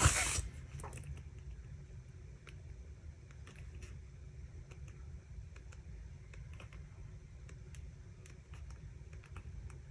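Faint, irregular taps of a pen tip on paper as white dots are dotted on one by one, a few a second, over a low steady room rumble. A brief louder rustle right at the start.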